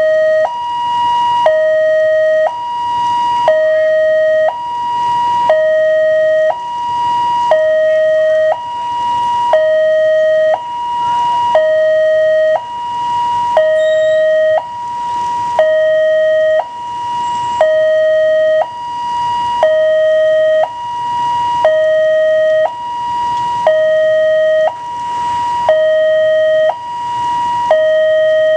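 Railway level-crossing alarm sounding an electronic two-tone warning: a lower and a higher note, each about a second long, alternating steadily over and over. It signals that a train is approaching while the crossing barriers are down.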